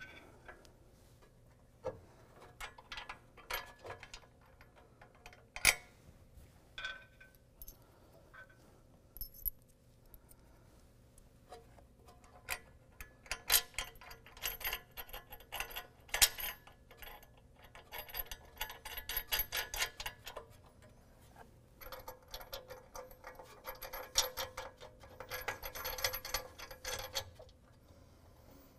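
Small metal clinks and clicks of bolts, washers and nuts being fed through and threaded into a steel high-lift jack mount plate and tire carrier bracket. Scattered single clicks give way to runs of rapid clicking in the second half.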